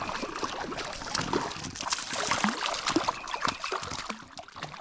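Small, irregular splashes in shallow creek water over a steady trickle, as a small hooked fish thrashes at the surface while it is brought in.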